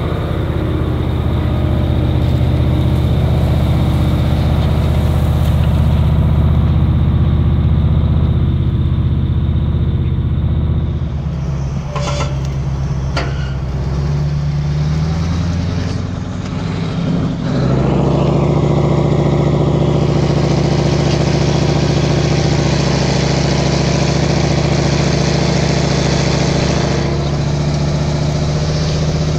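Massey Ferguson articulated tractor's diesel engine running steadily under load, pulling a multi-furrow plough through the field. Two sharp clicks come about 12 and 13 seconds in; then the engine note changes and holds steady at a higher pitch.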